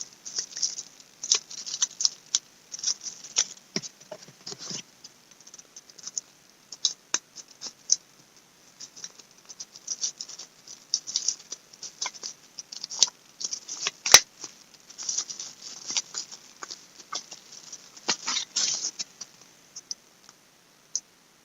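Plastic bubble wrap being unwrapped by hand: irregular crinkling and rustling with small clicks, one sharp click about fourteen seconds in, dying away near the end.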